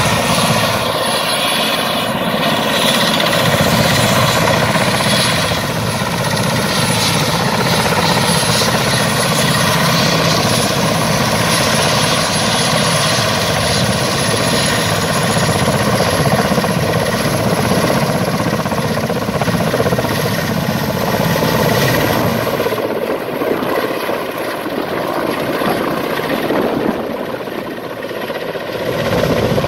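Mil Mi-17 helicopter's twin Klimov TV3-117 turboshaft engines and main rotor running at lift-off power, with a steady high turbine whine over the rotor noise. The helicopter lifts off and climbs away, and in the last several seconds the low rotor sound thins out.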